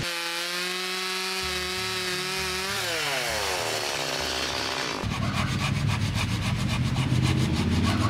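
Chainsaw running at high revs with a steady pitch, then the pitch falls away about three seconds in as the throttle is let off. From about five seconds in there is a rougher, rapidly pulsing noise.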